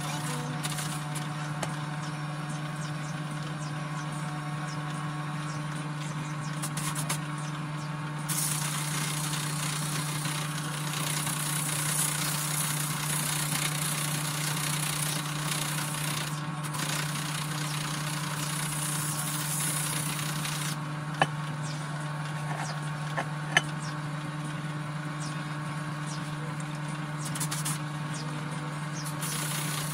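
Electric drill fitted with a sanding disc, running steadily with a constant motor hum while the abrasive hisses against metal, the grinding louder and softer as pressure changes. Two sharp clicks come in the last third.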